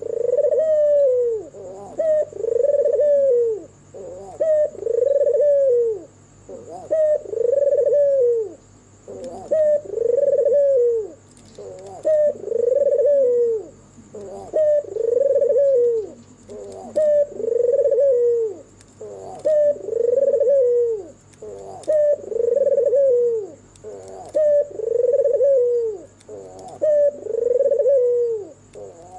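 White red-eyed puter dove, a domestic ringneck dove, cooing over and over: each phrase a short note followed by a longer arched coo, repeated about once every two seconds.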